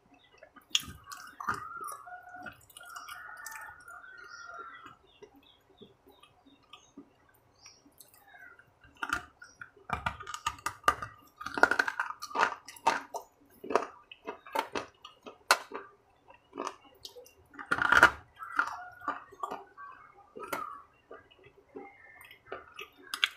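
Close-up eating sounds: chewing with wet lip smacks and sharp crunchy clicks of bites, coming irregularly. The loudest bite comes near the end.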